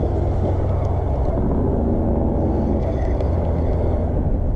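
Wind buffeting the camera microphone, a steady low rumble.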